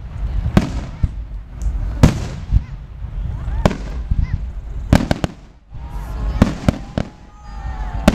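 Fireworks display: aerial shells bursting in a run of sharp bangs, a quick cluster of them about five seconds in, with a low rumble between the bursts.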